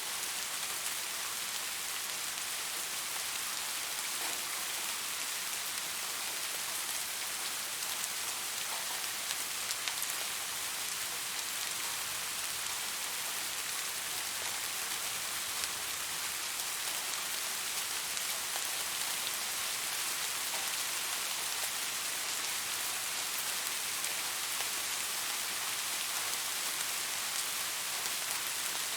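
Soft rain falling steadily, an even hiss with faint individual drop ticks scattered through it.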